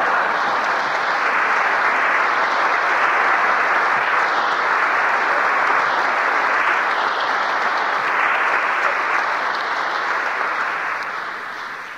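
Congregation applauding, a steady dense clapping that dies away over the last second or two.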